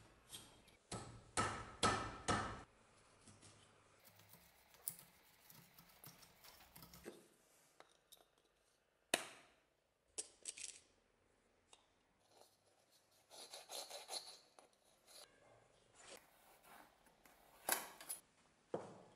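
Hand chisel paring wood in a quick run of short scraping strokes about a second in. After it come scattered clinks, ticks and one sharp knock as the steel axe head and metal tools are handled on the wooden workbench.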